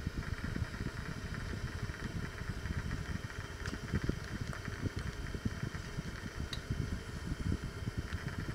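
Water poured from a plastic measuring jug onto the lid of an enamelled cast-iron pot, an irregular low splashing rumble.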